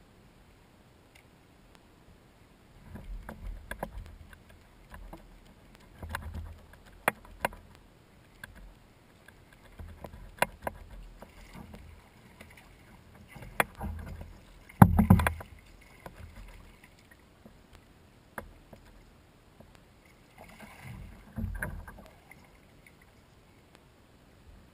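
A hooked fish being fought and brought alongside a plastic kayak. Scattered sharp clicks and knocks come from the rod, reel and hull, with low rumbling bursts as the boat and gear are handled, and there is splashing from the fish at the surface. The loudest knock-and-splash comes about fifteen seconds in.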